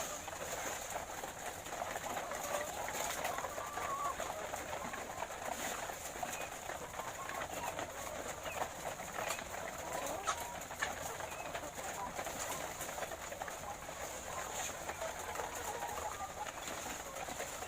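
A flock of caged laying hens clucking and murmuring in a continuous chorus, with scattered short clicks.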